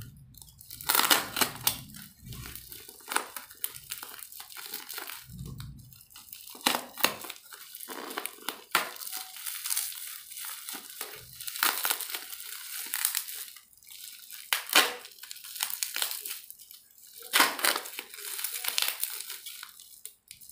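Crinkling and crackling of packaging being handled and torn open as a new SSD is unboxed, in irregular bursts with a few soft handling thuds.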